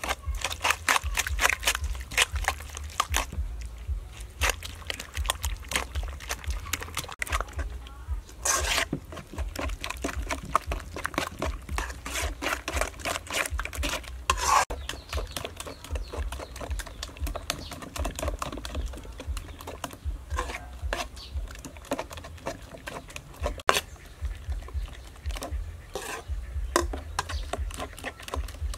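Metal spoon beating raw eggs with minced pork and chopped vegetables in an aluminium bowl: rapid, continuous clicking and scraping of the spoon against the bowl.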